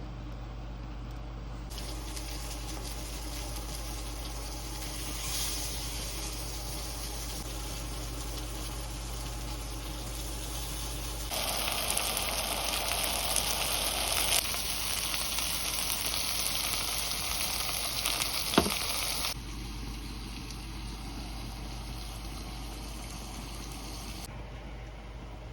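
Food sizzling on a hot camping grill or pan, a steady hiss that jumps abruptly in loudness several times and is loudest through the middle. A single sharp click comes about three-quarters of the way through.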